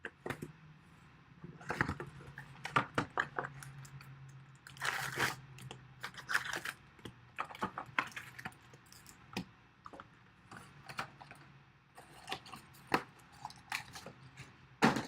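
Trading card packs being torn open and the cards handled: crinkling, ripping wrapper noise and a scatter of small sharp clicks and snaps, with a longer rip about five seconds in and another a second and a half later.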